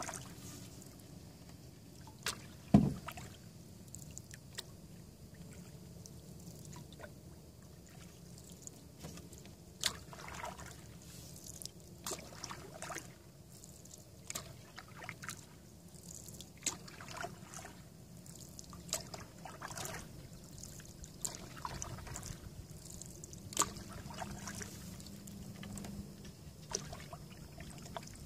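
Canoe being paddled on calm water: irregular small drips and trickles of water from the paddle strokes. One loud knock about three seconds in.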